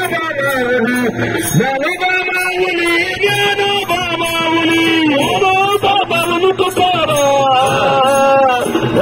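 Devotional bhajan singing: a sustained, gliding melody over a steady, regular high clinking beat.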